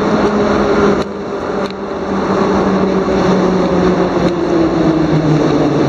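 Moscow Metro train pulling into the station, its steady whine falling slowly in pitch as it slows, over the rumble of the cars, with a few sharp knocks.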